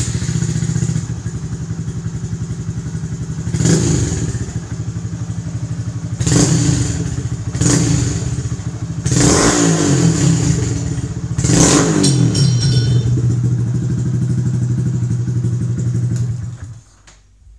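Honda Grom's 125cc single-cylinder four-stroke engine through an M4 slip-on exhaust with its baffle in (sort of), idling in neutral and revved with five quick throttle blips, the fourth held a little longer, settling back to idle between them. The engine sound stops near the end.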